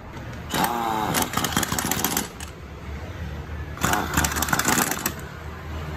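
Ingersoll Rand pneumatic impact wrench hammering in two bursts, the first about a second and a half long and starting with a short spin-up, the second about a second long.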